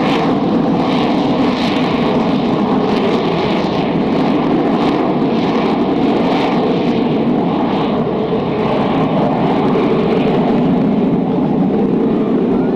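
AV-8B Harrier jump jet's Rolls-Royce Pegasus turbofan running loud and steady at close range, its upper hiss swelling and fading about once a second.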